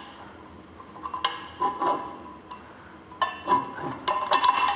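Steel studs and nuts clinking against a steel flange as the studs are set into its bolt holes: separate sharp metallic clinks with a short ring, a few about a second or two in and a quicker, louder run of them near the end.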